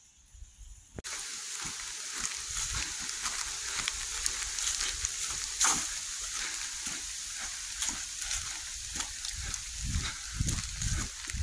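Footsteps crunching along a dry dirt trail with steady rustling of leaves and brush. It starts abruptly about a second in, with many small crackles and a few heavier thumps near the end.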